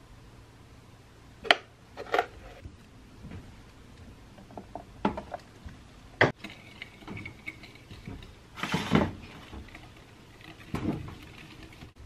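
Kitchen handling sounds as bowls and a spoon are used while measuring baking ingredients: a string of separate sharp clicks and knocks, the loudest about a second and a half in, with a longer noisy scrape a little after the middle.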